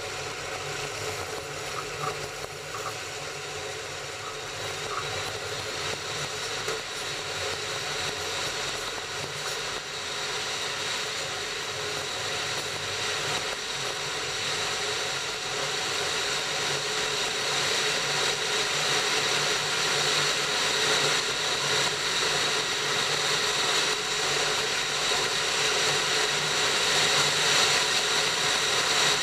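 Train running along the track: a steady rumble and hiss from the wheels and running gear, growing gradually louder.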